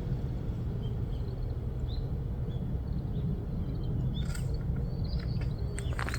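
Outdoor ambience: a steady low rumble with short high chirps from small birds scattered through it.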